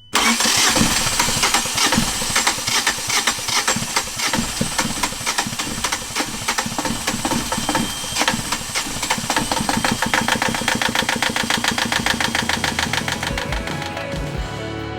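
Freshly rebuilt Yanmar 2GM two-cylinder marine diesel engine starting and running with a rapid, even clatter. Music fades in near the end.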